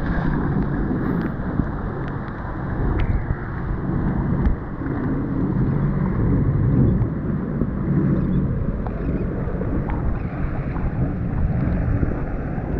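Sea-Doo GTX personal watercraft under way on choppy sea: a steady engine drone mixed with spray off the hull and wind buffeting the microphone.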